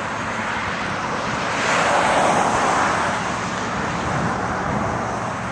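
Highway traffic noise: a passing vehicle's rushing tyre and engine sound swells and fades, loudest about two seconds in, over a steady background of road noise.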